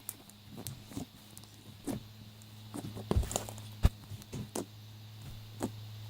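Clear crunchy slime being squeezed and poked by hand, giving irregular sharp pops and clicks, the loudest about three and four seconds in.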